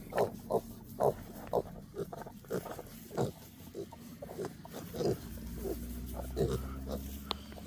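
Kunekune pigs grunting: a string of short grunts, about two a second at first, then more irregular and spaced out.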